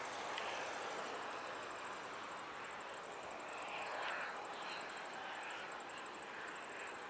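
Faint, steady whoosh of a distant twin-engine jet airliner's engines on approach, with a high, rapid pulsing chirr running over it throughout.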